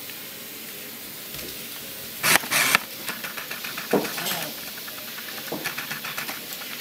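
Puppies play-wrestling on a hardwood floor: scrabbling claws and small clicks, with loud scuffling bumps a little over two seconds in and a short dog vocalisation about four seconds in.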